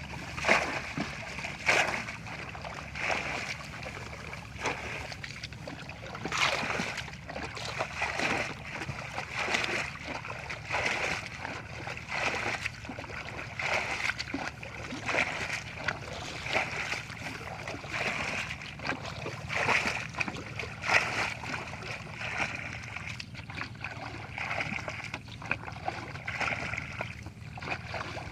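Water splashing and sloshing over and over, roughly once a second, over a steady low rumble.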